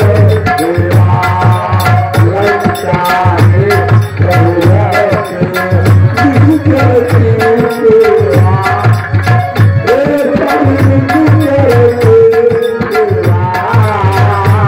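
Tabla beating a steady, repeating rhythm under a melody whose pitch bends up and down.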